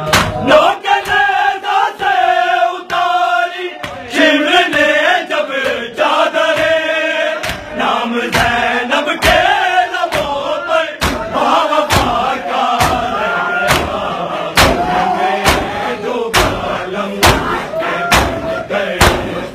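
A group of men chanting a nauha in unison, with sharp rhythmic slaps of hands beating chests (matam) a little under twice a second. The slaps are sparser at first and become steady and prominent in the second half.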